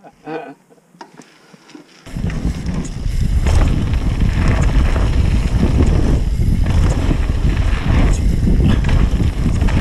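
Wind buffeting an action camera's microphone, mixed with the rumble of a downhill mountain bike's knobby tyres rolling over a dirt trail. The rumble starts suddenly about two seconds in and stays loud and steady.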